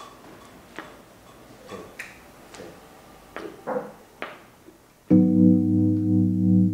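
Faint scattered clicks and knocks in a quiet room, then about five seconds in a keyboard starts the song's intro with a held chord.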